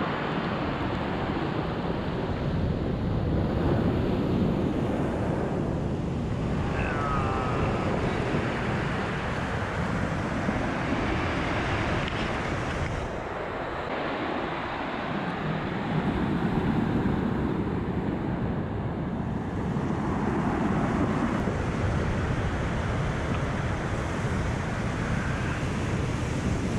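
Sea surf breaking and washing up a pebble beach in a continuous, slowly swelling rush, with wind buffeting the microphone.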